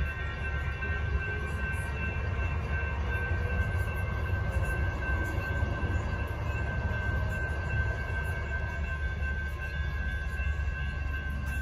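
Two-car CAF light rail train rumbling through a grade crossing while the crossing signal bells ring steadily.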